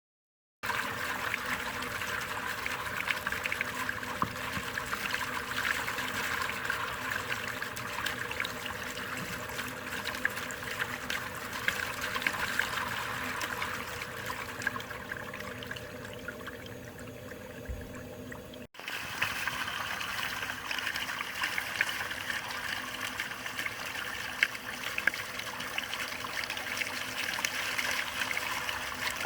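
Steady trickle of running water. It breaks off for an instant a little past halfway, then carries on.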